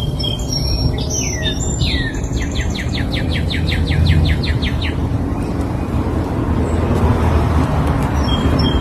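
A songbird singing: a few short high notes, two falling slurs, then a rapid trill of about sixteen repeated notes lasting some two and a half seconds. A steady low rumble runs underneath.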